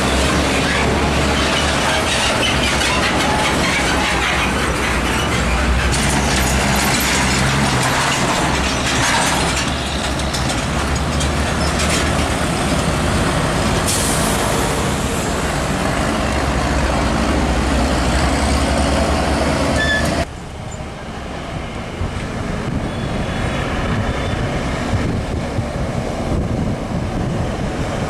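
Heavy diesel container trucks and motorcycles passing on a busy road, a steady, loud engine and traffic rumble. About two-thirds of the way through the sound drops suddenly, then builds again as another truck approaches.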